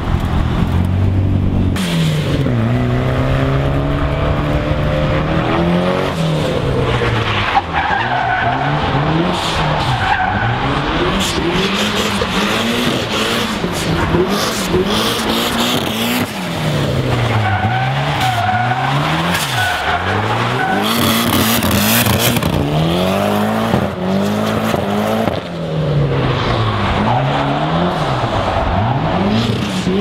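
Drift car engine revving up and down again and again as the throttle is worked, with tyres squealing as the car slides. The squeal is loudest twice, about a third of the way through and near the middle.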